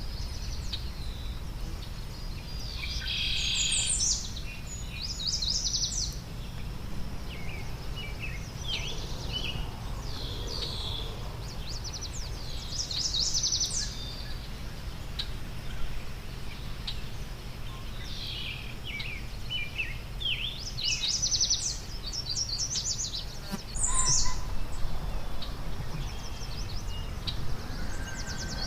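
Wild songbirds singing: short rapid trilled phrases and chirps every few seconds, over a steady low rumble of background noise.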